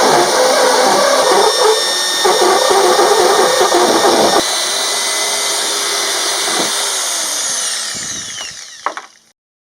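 Electric drill spinning a carbide burr, grinding into the Cub 90's leg shield for about four seconds, then running free with no load, then winding down in falling pitch as the trigger is let go near the end.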